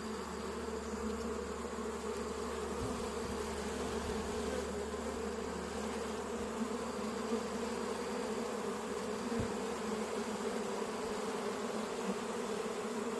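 Honeybees from a freshly smoked colony buzzing on a comb frame held up from an open hive: a steady, even hum.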